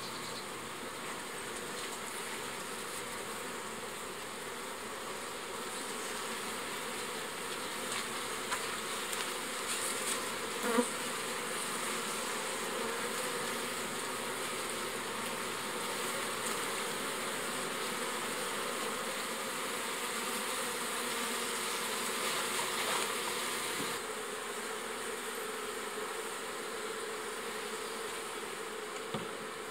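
Honeybee colony in an opened hive, buzzing with a steady hum; the colony is strong, with bees crowded thickly over the frames. A sharp knock comes about eleven seconds in, and a couple of knocks come near the end.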